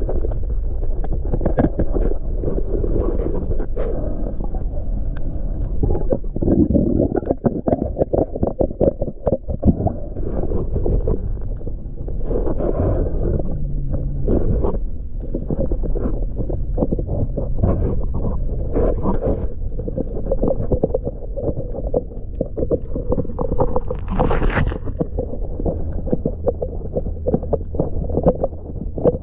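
Muffled underwater work noise at a boat's outboard bracket: continuous crackling and knocking with gurgling bubbles over a steady low hum, and a brighter burst of noise about 24 seconds in.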